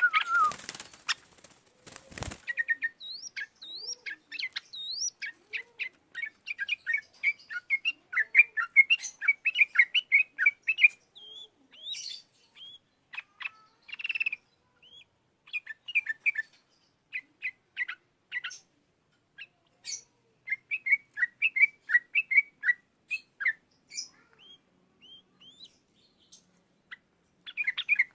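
Yellow-vented bulbul (trucukan) singing in fast runs of short, bright chirps and trills, broken by brief pauses. Two sharp noisy bursts come in the first couple of seconds.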